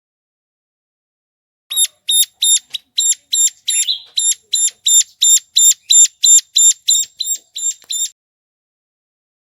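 Ciblek gunung (a prinia) calling: a fast series of sharp, identical high notes, about three a second, starting a couple of seconds in and stopping about a second and a half before the end.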